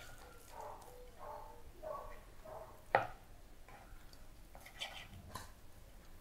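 Large knife carving grilled bone-in beef on a wooden board. One sharp knock of the blade on the board about three seconds in, and a few lighter clicks later, over faint voice-like sounds.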